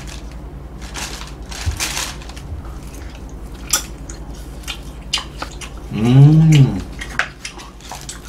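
Plastic takeout container, fork and plastic bag rustling and clicking as food is handled and eaten. About six seconds in, a man's loud drawn-out 'mmm' hum, rising and then falling in pitch, the sound of tasting something good.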